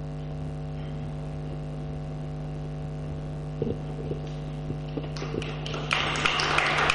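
Steady electrical mains hum, with a few faint taps; about five seconds in, audience applause starts and grows louder.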